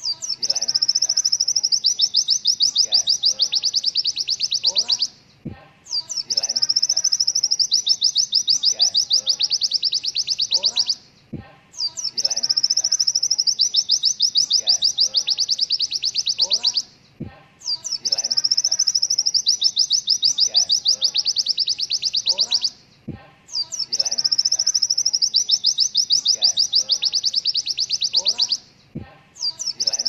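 White-eye (pleci) song: a long, fast rattling trill of high notes in phrases about five seconds long, broken by short pauses about every six seconds. This is the rapid 'tembakan' (shot) style of song prized in trained pleci.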